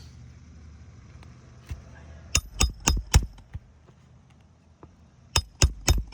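Hammer driving roofing nails into shingles: a single strike, then two quick runs of about four strikes each, every strike with a short metallic ring.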